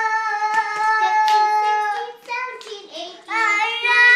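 A young child singing without clear words, holding one long note for about two seconds, then a few short notes and a new long note from about three seconds in.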